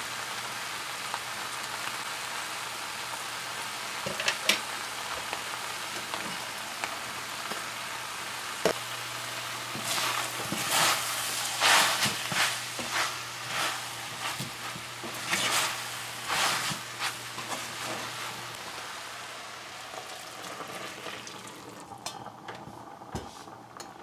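Soya chunks sizzling in a hot metal pan, with a couple of sharp knocks and then a run of scraping and clunking strokes as they are stirred with a spatula through the middle stretch. The sizzle dies down near the end, once there is liquid in the pan.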